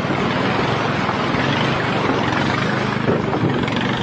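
Motorboat engine running steadily under way, with a steady rushing noise over it.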